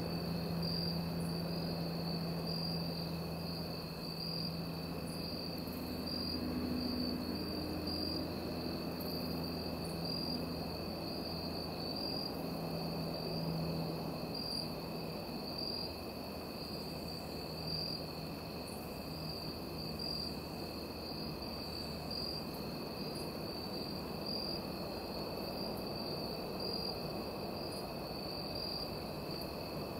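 A steady high-pitched chorus of crickets chirring in evening woods, pulsing evenly. Beneath it runs a faint low hum that fades out about halfway through.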